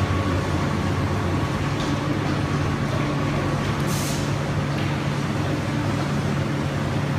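Steady low machinery hum of a foundry's 1-tonne induction furnace running, with a faint steady tone above it and a brief hiss about four seconds in.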